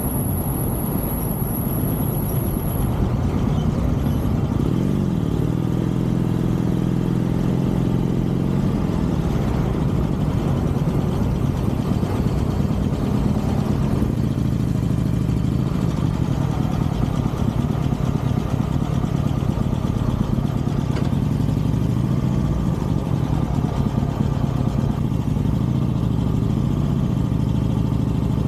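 Harley-Davidson Sportster Forty-Eight's air-cooled V-twin running under way, its pitch rising and falling as the throttle opens and closes.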